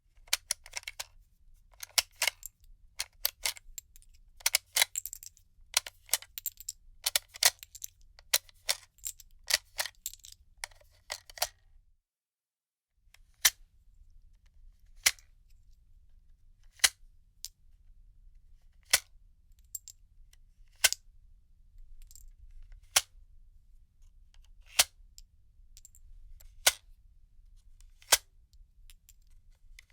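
Cartridges being unloaded from a gun magazine, making small metallic clicks. Quick clusters of clicks come for the first twelve seconds; after a short break, single sharp clicks follow about every two seconds.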